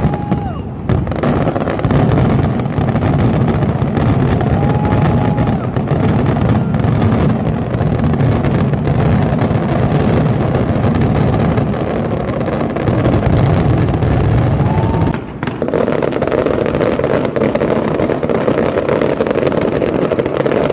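Aerial fireworks display: a dense, continuous barrage of bangs and crackling, with the occasional short whistle of a rising shell. About fifteen seconds in the sound dips briefly and then carries on with a changed, higher texture.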